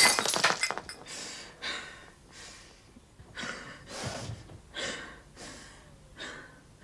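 Something crashes and breaks against a door, with pieces scattering for about a second. Then a woman breathes raggedly in short, gasping sobs, roughly one each second.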